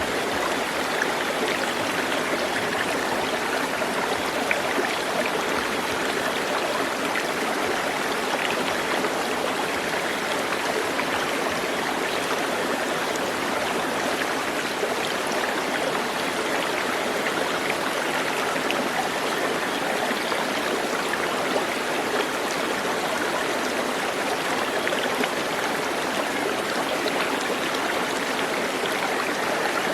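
Stream water flowing, a steady even rush with no let-up.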